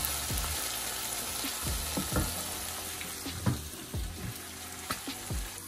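Okra, sweet peppers and onions sizzling as they fry in a large pot, stirred with a wooden spoon that knocks against the pot now and then.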